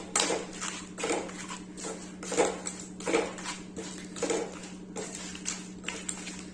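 Crushed crab, onion, spices and a little water being stirred in a pan: the utensil scrapes and knocks against the pan in quick repeated strokes, two or three a second, over a steady low hum.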